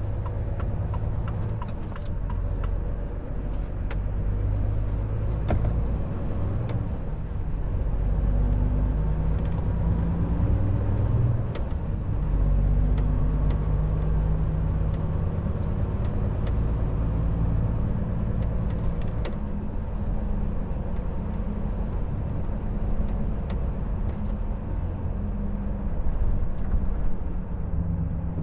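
Volvo FH 460 truck's 13-litre straight-six diesel running under way, a steady low rumble mixed with tyre and road noise; its engine note steps up and down several times as the revs change.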